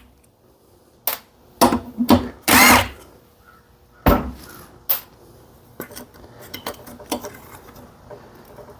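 Hand tools and small metal engine parts clicking and knocking as the breaker-points cover comes off a small Briggs & Stratton engine, with a short scrape about two and a half seconds in, one sharp knock about four seconds in, and lighter ticks after.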